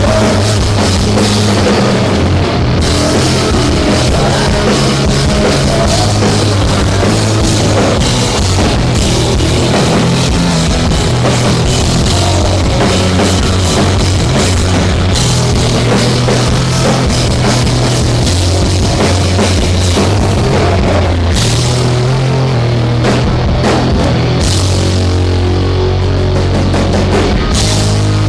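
Live rock band playing loud, with drum kit, electric guitar and bass.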